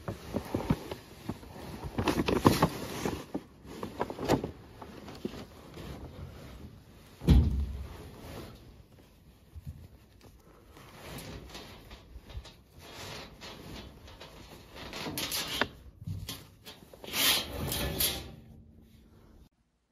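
Irregular clattering and rustling of objects being handled and knocked about, with one heavy thump about seven seconds in and a louder run of clatter near the end.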